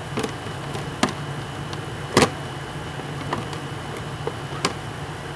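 A few scattered clicks and knocks of small parts and tools being handled and set down, the loudest a little over two seconds in, over a steady low hum.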